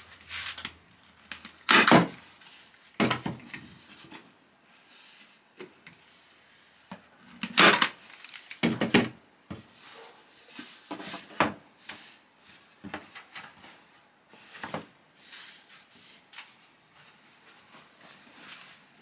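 A staple gun fastening upholstery wadding to a wooden seat board: several sharp, loud clacks in the first half, the strongest about two seconds in and just under eight seconds in. After that come softer knocks, with the rustle of the sheet of wadding being handled.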